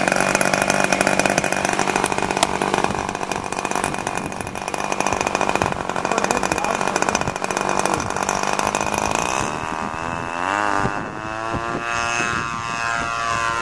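Radio-controlled model airplane's O.S. Max 120 glow engine running loud and steady at high throttle, then its pitch sweeps up and down about ten seconds in as the plane takes off and flies past.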